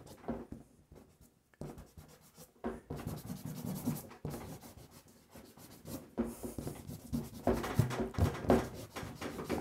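A hard eraser rubbing over dry pastel on paper in short, irregular scraping strokes, lifting pigment off the drawing. The strokes begin about a second and a half in, pause briefly around the middle, then pick up again.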